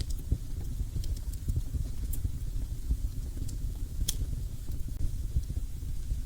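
Fire burning in a fireplace: a steady low rumble with scattered sharp crackles and pops, the loudest about four seconds in.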